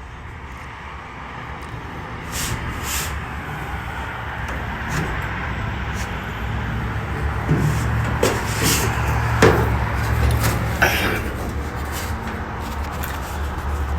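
Wind buffeting the microphone, high up on a turning rotating sign: a steady low rumble and rushing noise that slowly grows louder, strongest in the second half, with a few scattered clicks and knocks.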